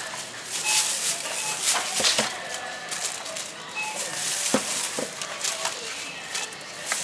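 Groceries being packed at a supermarket bagging counter: crinkly plastic rustling and handling noise, with a few sharp knocks as items are set down on the counter and in the plastic basket. Short electronic beeps sound faintly in the background now and then.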